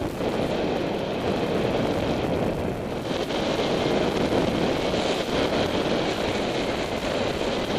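Steady rushing of wind buffeting a helmet-mounted camera's microphone in flight under a paraglider.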